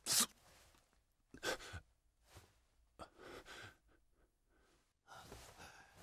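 A man's sharp gasping breath, followed by a few fainter sighing breaths as he comes round from a long unconsciousness.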